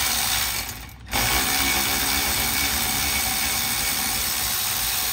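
Milwaukee cordless electric ratchet spinning out caliper bolts that were already broken loose by hand. It runs in a short burst that stops about a second in, then a longer steady run.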